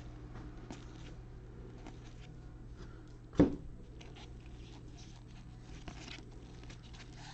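Trading cards being handled and flipped, with soft rustles and light ticks and one sharp thump about three and a half seconds in.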